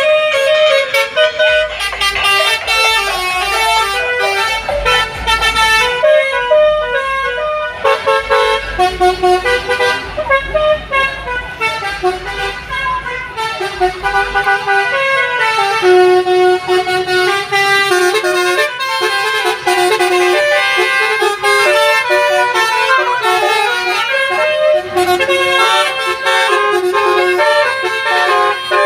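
Multi-tone telolet horns on the Basuri kereta playing a long melody of stepped, changing notes. A low rumble sits underneath for the first half and drops away about halfway through.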